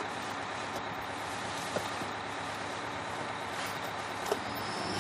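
Steady noise of a moving city bus heard from inside the passenger cabin, with two faint knocks.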